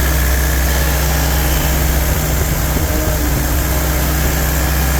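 Freshly rebuilt 1948 Willys engine running steadily, with no bad noises.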